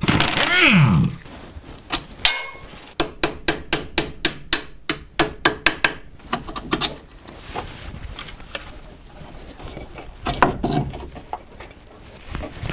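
Pneumatic impact wrench spinning on a strut-to-knuckle bolt, its pitch falling as it runs down. Then a ringing hit, and a quick run of hammer blows on metal, about six or seven a second, driving the bolt through the knuckle.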